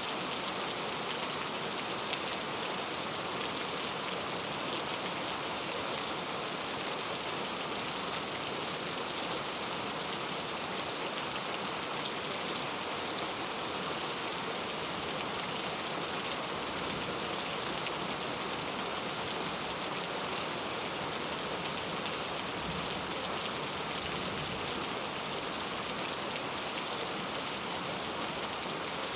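Rain falling steadily on a road surface: an even, unbroken hiss of many fine drops.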